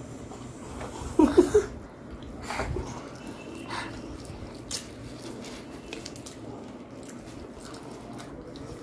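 A young child's brief high vocal sound about a second in, then quiet eating sounds: a paratha being torn by hand, with soft chewing and small clicks.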